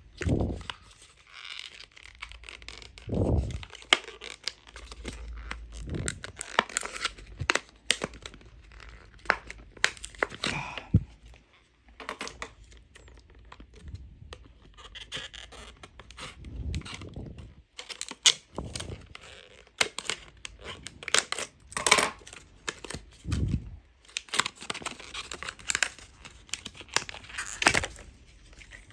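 Product packaging being torn open and crinkled by hand, with many sharp clicks and knocks as it is handled.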